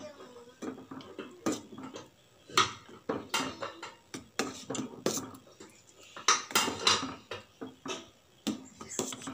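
Metal ladle stirring thick payasam in a stainless steel pot, scraping and clinking irregularly against the bottom and sides, with louder knocks about two and a half and six and a half seconds in.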